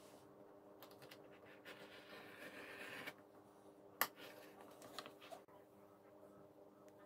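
A craft knife drawn along a steel ruler, slicing through paper with a soft scratching that rises over about a second and a half. A sharp click follows about four seconds in, then a couple of lighter taps.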